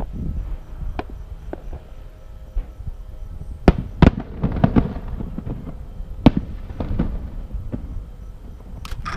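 Aerial fireworks going off: a string of sharp bangs with crackling between them, the loudest pair about four seconds in.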